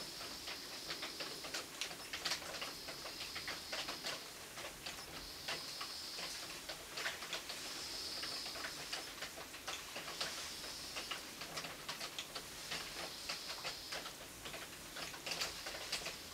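Irregular ticking of raindrops dripping onto a hard surface, several a second, during a night thunderstorm. A faint high hiss comes and goes in stretches of about a second. No thunder is heard.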